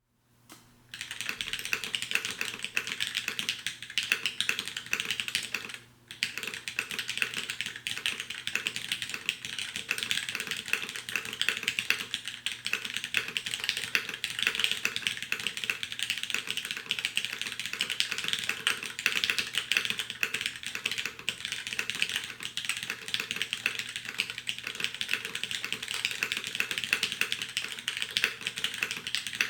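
Steady fast typing on a Popstar V5 custom mechanical keyboard with polished, lubed and filmed linear Cherry MX Black switches in a full aluminium plate, under sculpted DCS-profile keycaps. There is a short pause about six seconds in.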